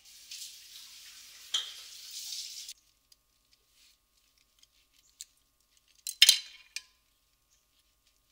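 Water runs from a kitchen tap for a few seconds and cuts off abruptly. Then wooden chopsticks and a wooden spoon are handled on a ceramic plate: a few light clicks and one sharp clack about six seconds in, with a couple of smaller taps after it.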